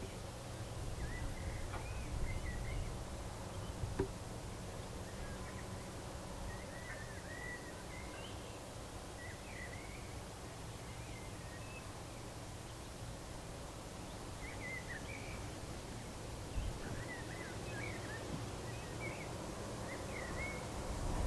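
Outdoor ambience of faint distant songbirds singing short chirping phrases throughout, over a low steady rumble. There are a couple of soft clicks about two and four seconds in.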